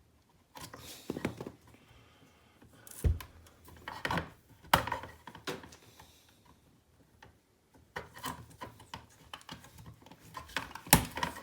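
Knife slitting the grey PVC outer sheath of twin-and-earth electrical cable, and the sheath being tugged and twisted off: irregular scrapes, rubs and clicks, with a quiet pause in the middle and a sharp click near the end.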